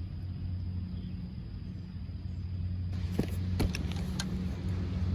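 Steady low hum of a running motor, with two light clicks a little over three seconds in.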